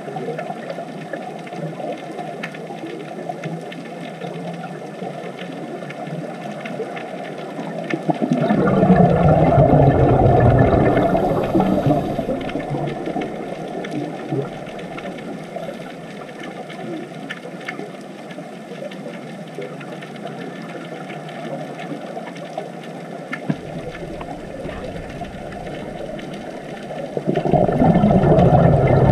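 Underwater ambience: a steady hiss, broken twice by a few seconds of loud bubbling from a scuba diver's exhaled breath, about eight seconds in and again near the end.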